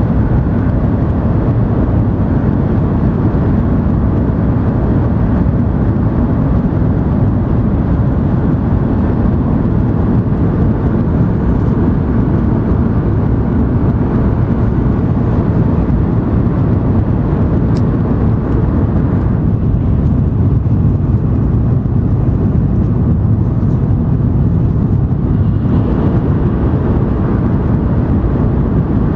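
Steady rumble and rush of an N700 series Shinkansen running at speed, heard inside the passenger cabin. The higher hiss thins out about two-thirds of the way through and returns a few seconds later.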